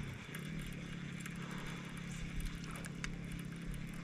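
Steady low hum of an electric bow-mounted trolling motor running, with a few faint clicks.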